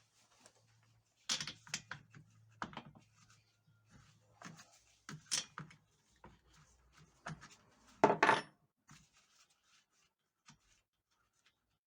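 Scattered clicks and knocks of small hard objects being handled, with a louder clatter about eight seconds in.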